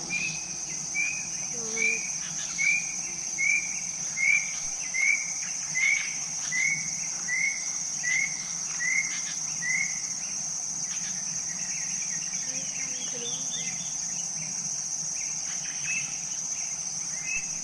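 Nature ambience: insects trilling steadily in a high drone, with a short high chirp repeated evenly, about once every 0.8 seconds, for the first ten seconds, then only a few scattered chirps.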